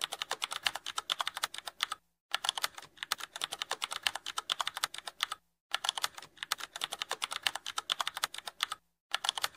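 Rapid computer-keyboard typing, many keystrokes a second, stopping briefly three times, about two, five and a half, and nine seconds in.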